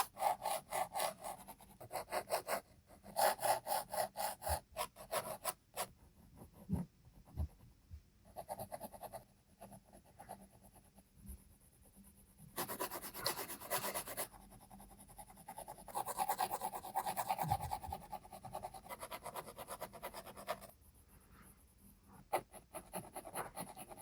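Graphite lead of a Koh-I-Noor Rapidomatic mechanical pencil scratching across paper in quick back-and-forth shading strokes. The strokes come in runs with short pauses between them.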